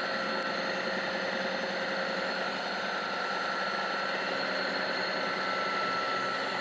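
Milling machine table power feed motor running steadily as the table traverses, a whine with several held pitches.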